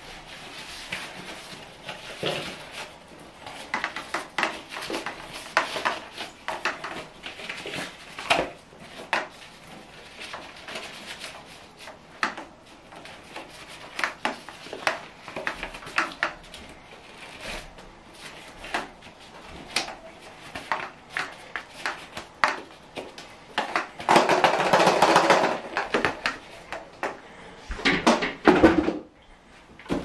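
Plastic parts of a Henry vacuum cleaner knocking and clattering against each other and the bathtub as they are handled and taken apart: scattered clicks and knocks, with a louder stretch of noise lasting about two seconds, about four-fifths of the way through.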